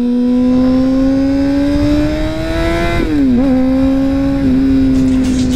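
Honda CBR600RR inline-four sport bike with an aftermarket Two Brothers exhaust, running at high revs on the move. Its pitch climbs slowly, dips and wobbles briefly about three seconds in, then holds steady. Wind rumble on the helmet-mounted microphone sits beneath it.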